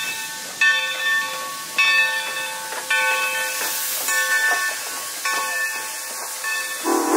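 Steam locomotive bell ringing steadily, about one strike a little over every second, over the hiss of steam. Music starts just before the end.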